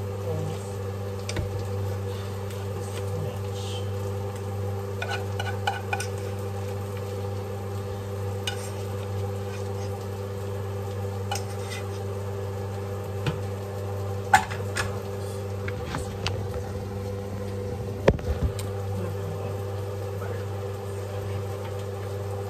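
Food frying and sizzling in a pan on the stove, over a steady low hum, with a few sharp clinks of a utensil against the cookware; the loudest clinks come about two-thirds of the way through.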